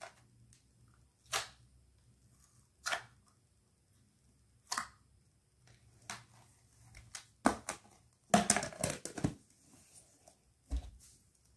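Clear plastic tub and its contents being handled: separate short clatters and rustles every second or so, with a louder run of rustling about eight seconds in and a dull knock near the end.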